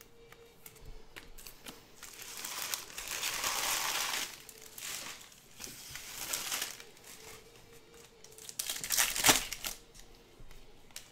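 Foil trading-card pack wrapper crinkling as a Topps Chrome pack is torn open and the cards are slid out. The longest stretch of crinkling comes about two to four seconds in, and the sharpest crackle about nine seconds in.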